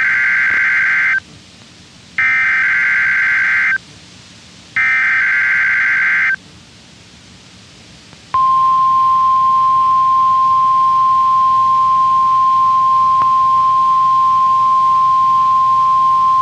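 NOAA Weather Radio SAME header from station WXJ72 for a Required Weekly Test: three bursts of warbling data tones, each about a second and a half long with a second's gap between them. About eight seconds in, the steady 1050 Hz warning alarm tone starts and holds.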